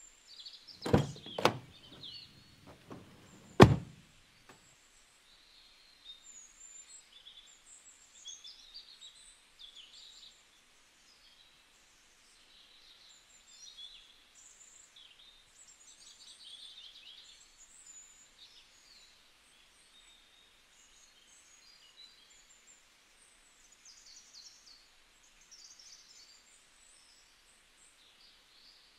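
A few thunks in the first four seconds, the loudest about three and a half seconds in, as a car's tailgate is opened. Then birds chirping.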